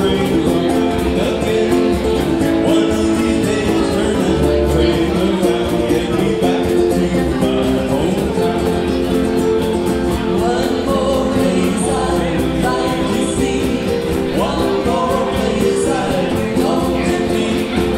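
Small ukulele band playing live, several ukuleles strummed in a steady rhythm.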